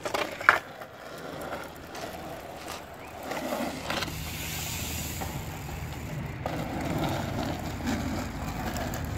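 A skateboard slapped down onto asphalt with a sharp clack about half a second in, then its wheels rolling over the asphalt as a steady rumble from about three seconds in, with a few clicks along the way.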